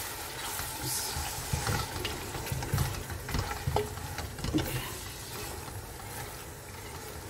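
A spatula stirring a thick, wet tomato-and-onion masala in an aluminium pot, with irregular scrapes and soft knocks against the pan over a light sizzle.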